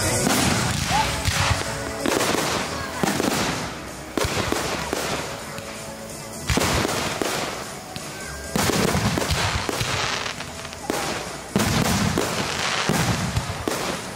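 Fireworks going off: a run of bangs, several sudden loud ones a couple of seconds apart, with crackling between them.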